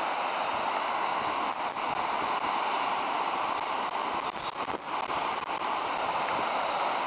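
Steady rushing of a muddy debris flow surging down a creek channel, a slurry washed off a wildfire burn scar.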